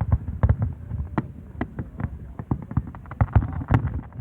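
Fireworks display: a fast, irregular run of bangs and low booms, several a second, over a steady low rumble.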